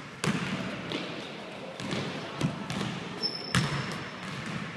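Basketball dribbled on a hardwood gym floor in a large hall: several uneven bounces, the loudest about three and a half seconds in. A brief high sneaker squeak comes just before it, with footsteps on the boards.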